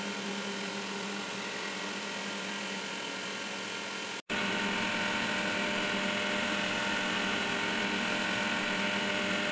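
A Makera Z1 desktop CNC spindle runs a 1/8-inch single-flute end mill through a wood block on a facing pass, a steady whine with several tones. A momentary break comes about four seconds in, and after it the sound is somewhat louder.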